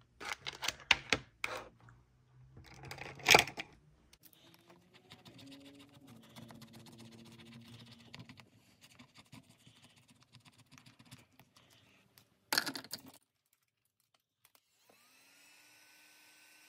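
Plastic sleeve and card handled with clicks, then a tool scratching off the coating of a scratch-off card in a run of fine, quick scratches for several seconds, ending in a short loud knock. Near the end a small electric motor starts with a brief rising whine and hums steadily: a motorized dice cup rolling dice.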